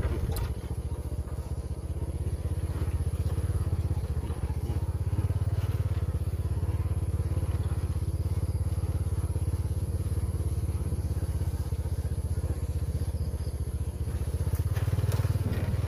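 Motorcycle engine running steadily as the bike is ridden, a fast even low putter that grows a little louder about five seconds in and again near the end.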